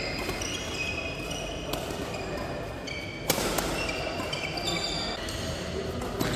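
Badminton rally: sharp smacks of rackets striking the shuttlecock every second or two, the loudest a little past halfway, with short high squeaks of court shoes.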